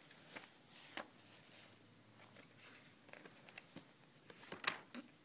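Faint, irregular clicks of calculator keys being pressed, a handful spread out and a quicker cluster near the end, as an arctangent is worked out.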